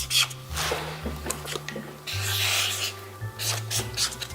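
Pen scratching across paper as someone writes out a short phrase by hand, in a run of rubbing strokes over background music.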